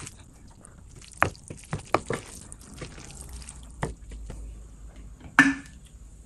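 Sticky, wet sounds of a fork working through sauce-coated Korean fire noodles, with scattered sharp clicks and one louder, wetter sound about five seconds in.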